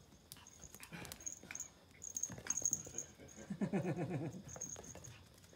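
Pomeranian puppy playing with a plastic ball on a vinyl floor: scattered light taps and knocks of the ball and paws. About three and a half seconds in, the puppy makes a brief vocal sound of under a second.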